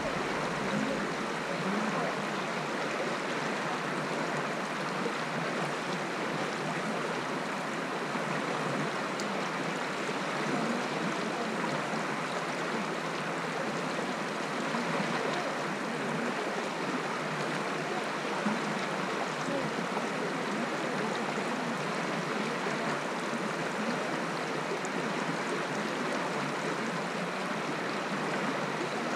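Shallow stream flowing over stones, heard close to the water surface: a steady, even rush of water.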